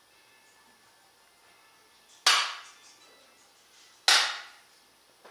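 Jukbi, the split-bamboo clapper used in Korean Buddhist monasteries, struck twice about two seconds apart, each sharp clap ringing briefly in the hall. The strikes signal the close of a period of silent meditation.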